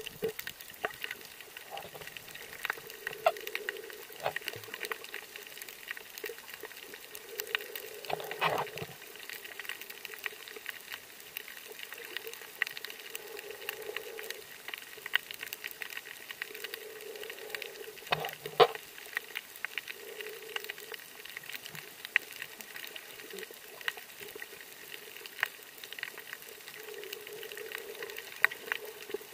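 Underwater ambience over a coral reef, heard through a submerged camera: a steady crackle of countless faint clicks, with soft muffled swells every few seconds. Two louder knocks come about a third and two-thirds of the way through.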